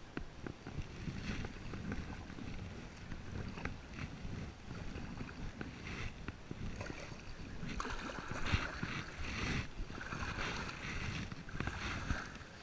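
Kayak paddle strokes: the blades dipping and swishing through calm water, the swishes louder and more frequent in the last third, over a low wind rumble on the microphone.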